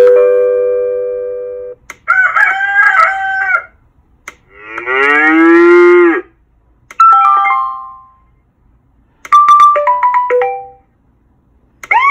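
Ringo Bell GSR wireless call-bell receiver playing its built-in call tones one after another as its + button is pressed: a doorbell-style chime fading out, a recorded rooster crow, a cow moo, two short melodies of stepped falling notes, and a wailing siren tone starting right at the end.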